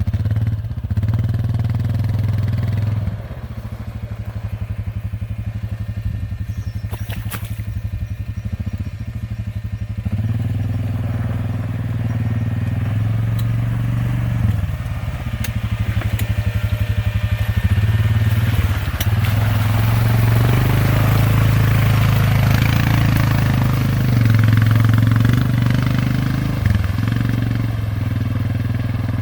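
ATV engine running throughout, its note shifting up and down with the throttle, with a few brief dips.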